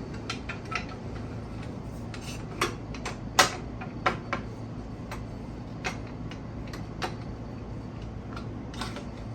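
Scattered clicks and knocks of a wooden board and tools being handled at a workbench, over a steady low hum. The sharpest knock comes about three and a half seconds in.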